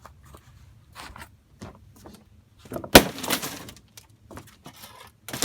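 A hard blow struck on a vintage circuit board: one sharp crack about three seconds in, followed by a short clatter of small pieces, with a few lighter knocks before it.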